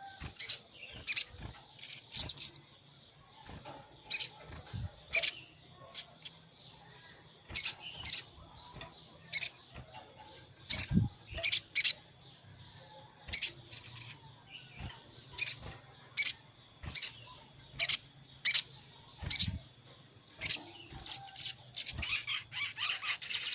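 Sogon sunbird calling: short, sharp, high chips repeated irregularly about once or twice a second, crowding into a fast run near the end. It is the call a female sogon uses to summon a male, used as a lure.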